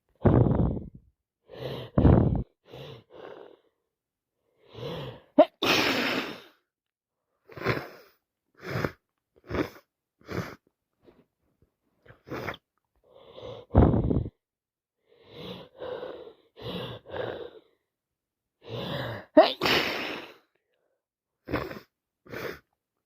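A woman with a wet head cold sneezing again and again, short bursts with breaths between them; the two loudest, sharpest sneezes come about five seconds in and near twenty seconds.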